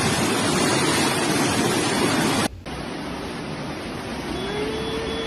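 Rushing water: a loud, steady noise that cuts off abruptly about two and a half seconds in. After the cut comes a quieter noise with a faint steady tone starting near the end.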